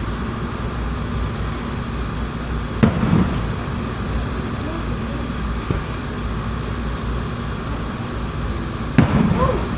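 Fireworks shells bursting in an aerial display: two loud booms with a rumbling echo, about three and nine seconds in, and a fainter bang between them, over a steady low rumble.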